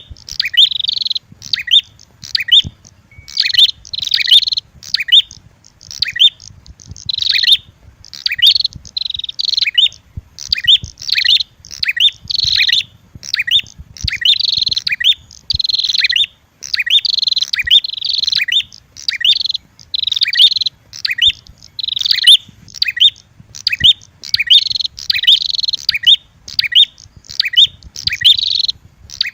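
Prenjak lure call: a red-headed prenjak and a female prenjak in fighting call, sharp high chirps in rapid bursts about once a second, without a break.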